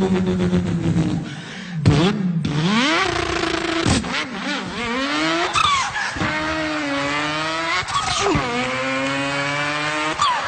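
A man imitating a car engine with his voice. It holds a high note, then climbs in pitch again and again, breaking off between climbs like an engine revving up through the gears.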